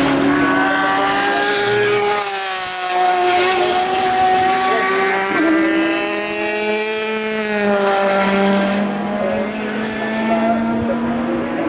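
Endurance race cars passing at speed, their engine notes rising and falling and overlapping as one car follows another.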